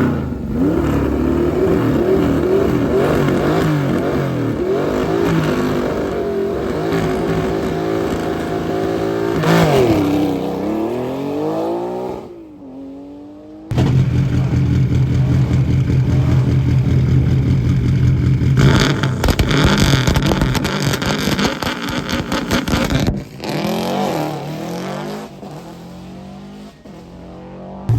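Historic rally car engines at a stage start: the first is revved repeatedly, then accelerates away and fades. After a short break, a second car's engine is held at steady high revs, launches with loud crackling about two-thirds of the way through, and fades into the distance.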